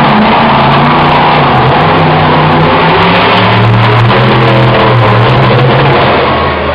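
Monster truck engine revving hard, its pitch rising and falling with the throttle, loud throughout and easing off near the end.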